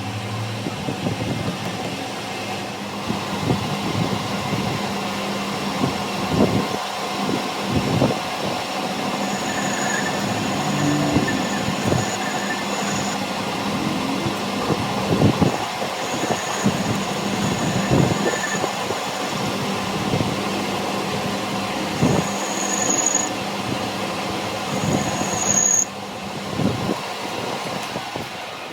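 A machine running steadily, with scattered knocks and an on-off high-pitched squeal.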